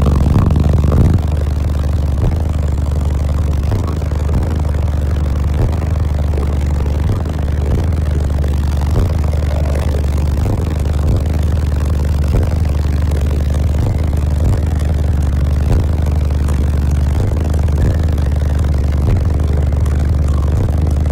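Six competition subwoofers on a 0.33-ohm amplifier load playing a deep, steady bass note at very high volume, heard inside the car's cabin, with a few faint clicks scattered through it.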